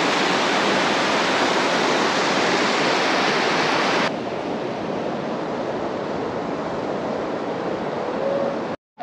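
Steady rush of river water over rocks in a rapid. About four seconds in it drops to a quieter, duller steady rush, and the sound cuts out briefly near the end.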